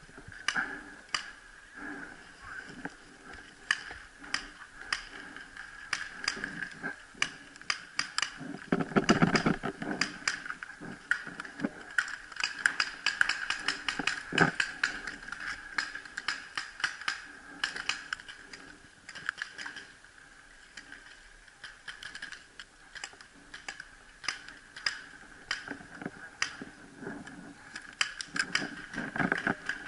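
Irregular mechanical clicks and clacks of a Tippmann TiPX paintball pistol being handled, densest about halfway through.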